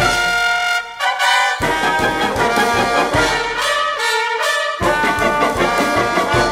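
Concert wind band playing a bravura piece for two solo trumpets, with the trumpets bright on top. Twice the low instruments drop out briefly, first at the start and again at about four seconds, leaving the higher parts on their own before the full band comes back in.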